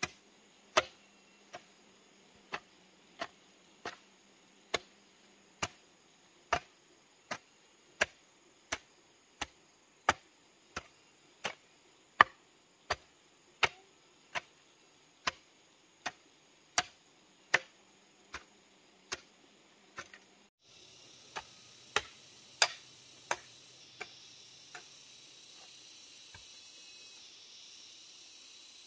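Steel hoe chopping into grassy soil, a sharp strike about every three-quarters of a second. About two-thirds through, a steady high hiss comes in, and a few fainter strikes follow before they stop.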